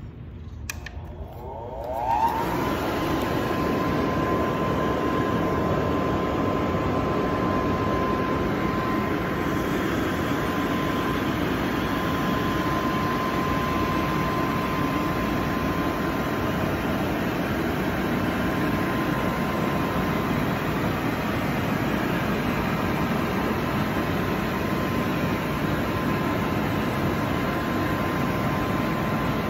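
An electric inflatable blower is switched on with a click. Its motor spins up to speed in about a second, then runs steadily as it blows air into an inflatable game: a constant rush of air with a steady whine.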